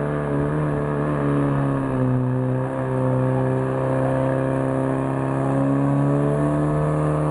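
Portable fire pump engine running hard at high revs, a steady engine note that dips slightly in pitch about two seconds in and rises again near the end, as it drives water through the attack hoses.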